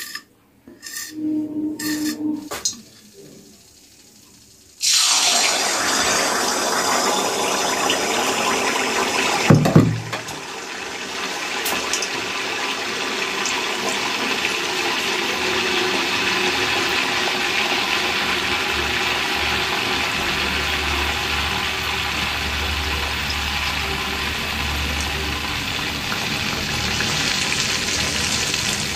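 A few short knocks of a ladle in the batter pot, then jaggery batter hits hot oil in a kadai about five seconds in and the oil sets off a loud, steady deep-fry sizzle and bubbling as the gur pitha fries. There is a single thump just under ten seconds in.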